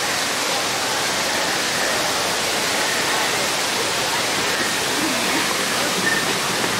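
Steady rushing of artificial waterfalls pouring down theme-park rockwork, with faint crowd chatter underneath.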